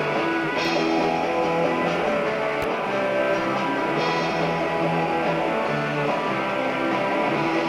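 Rock band playing live, an instrumental passage led by guitar with no singing.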